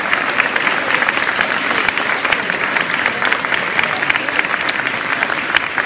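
Audience applauding: many hands clapping, with sharp claps close by.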